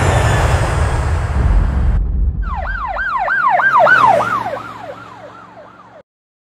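Loud jet aircraft noise that cuts off suddenly about two seconds in, followed by an emergency-vehicle siren in a fast up-and-down yelp, about three sweeps a second, fading away to silence near the end.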